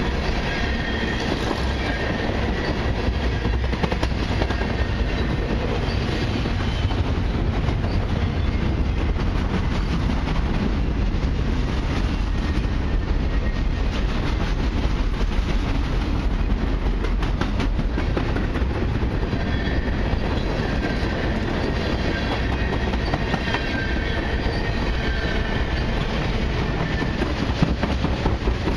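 Freight train cars, tank cars and autoracks, rolling past in a steady rumble, their wheels clacking over the rail joints. Faint high squeals come near the start and again in the second half.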